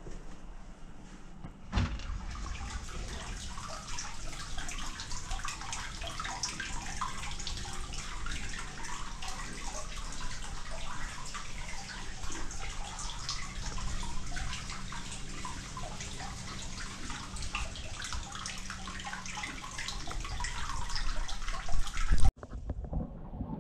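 Hot-spring water pouring from a spout into a wooden open-air bath tub, a continuous splashing trickle that comes in about two seconds in and grows louder near the end before cutting off suddenly. The water flows in continuously, free-flowing (kake-nagashi) from the source.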